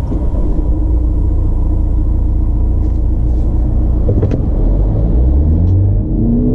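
Mini Cooper Countryman D's 2.0-litre four-cylinder diesel engine, heard from inside the cabin: a steady low idle rumble, then the car pulls away from standstill at full throttle about four seconds in and the engine note climbs.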